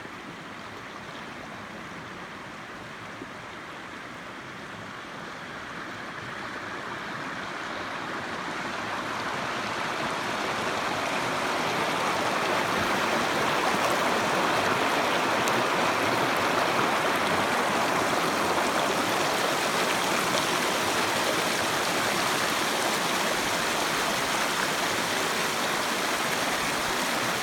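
Grape Creek flowing, a steady rushing of stream water that grows louder over the first twelve seconds or so, then holds.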